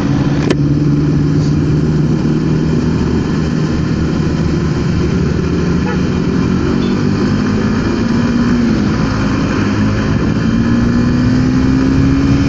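Motorcycle engine running steadily while riding, its pitch rising slowly over the last few seconds, under a constant rush of wind and road noise.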